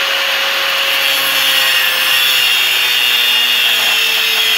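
Angle grinder with a cut-off wheel cutting through a steel nail used as a rivet pin, a steady loud grinding hiss over the motor's whine. The motor's pitch sinks slightly toward the end as the wheel bears down.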